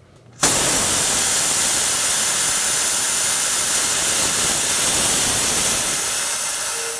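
Air Venturi 4,500 psi high-pressure air compressor's bleed valve opened, venting compressed air in a loud hiss that starts suddenly about half a second in and slowly tapers off near the end. It is blowing out the moisture and oil that collected in the system during the fill.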